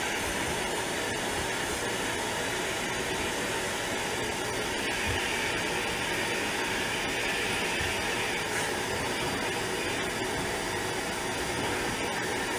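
Vacuum cleaner running steadily, a constant whooshing hiss.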